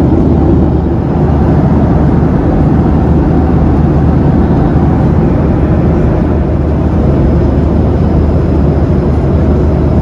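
Steady low cabin noise of a Boeing 737-800 airliner, loud and unchanging.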